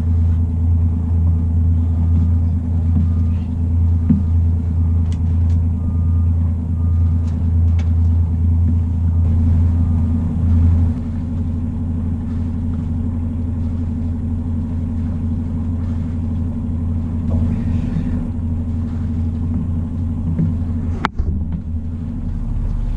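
Inboard diesel engine of a Sun Odyssey 379 sailing yacht running steadily under motor, with a low, even drone that eases slightly about eleven seconds in. A sharp click comes near the end.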